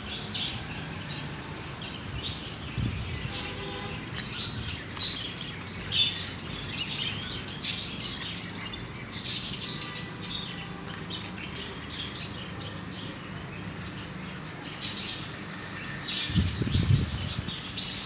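Small parrots in a wire-mesh aviary chirping and twittering, many short high calls overlapping at an irregular pace. A brief low rumble comes near the end.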